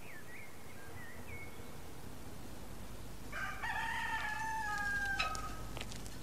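Rooster crowing once, about three seconds in: a cock-a-doodle-doo ending in a long held, slightly falling note. A few faint high chirps come before it.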